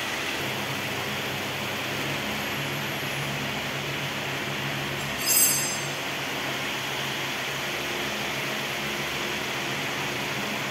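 Steady mechanical hum with an even hiss, like a fan or air-conditioning unit running, and one short, louder noise about five seconds in.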